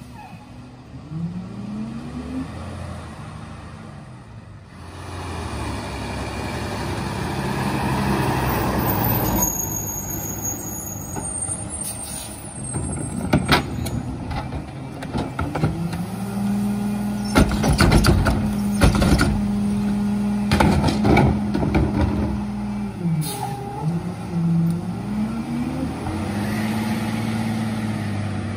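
Heil PowerTrak rear-loader garbage truck on a Freightliner M2 chassis running at the curb, its diesel engine revving up and settling back several times as it drives the hydraulic packer through its cycles. Sharp bangs and clatters from carts being tipped and emptied into the hopper come mostly through the middle.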